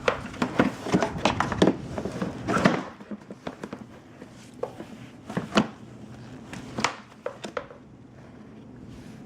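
Plastic booster-seat parts knocking and clattering as they are handled on a floor: a quick run of knocks and clicks in the first three seconds, then scattered single knocks.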